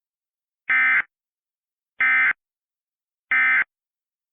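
Emergency Alert System SAME end-of-message data bursts: three short, identical buzzy warbles about 1.3 seconds apart, marking the end of the alert.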